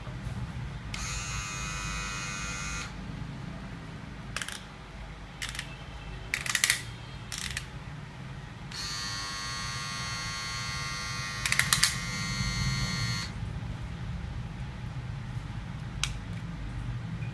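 Philips HC3418 cordless hair clipper switched on and running twice with a steady electric buzz, first for about two seconds, then for about four and a half seconds, each time cutting off abruptly. Several sharp plastic clicks come between and after, from the clip-on comb attachment being handled.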